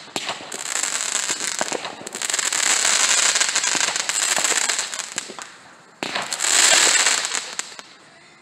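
Consumer fireworks going off: a long stretch of dense crackling and hissing, then a fresh burst that starts suddenly about six seconds in and fades near the end.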